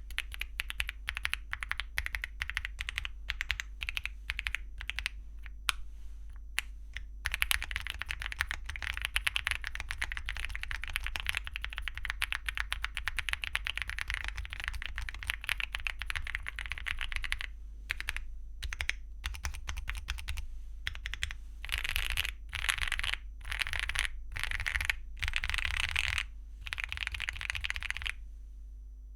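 Typing on a Weikav Lucky65 mechanical keyboard with lubed KTT Matcha tactile switches and Cherry-profile PBT keycaps. Separate keystrokes at first, then fast continuous typing from about seven seconds in, then short bursts of rapid keystrokes near the end.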